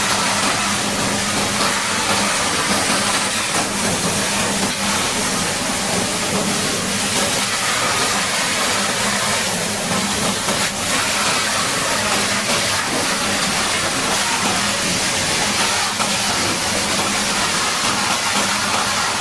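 High-pressure water jet spraying steadily onto heavy equipment, a continuous loud hiss, with a faint steady engine or pump hum underneath.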